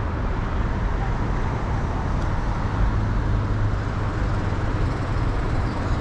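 Steady city street traffic noise: a constant low rumble of passing vehicles with no single event standing out.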